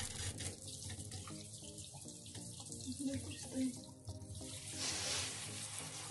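Water running from a handheld shower into a bathtub, a steady hiss that grows fuller near the end as the shower head is brought down to the mat.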